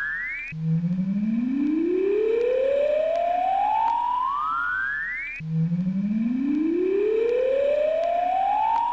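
A siren-like wailing tone that climbs steadily from low to high over about five seconds, then cuts off suddenly and starts again from the bottom, about half a second in and again near the end of the first climb's repeat. A faint high whistle sits above it.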